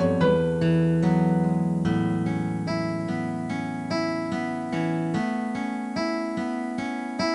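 Background music: a slow, gentle keyboard tune of sustained piano-like notes.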